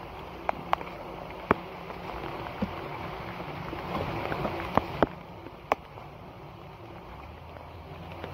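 Shallow floodwater running and gurgling through a mat of wet leaves, with several sharp clicks and knocks as the waterlogged leaves are moved around in it.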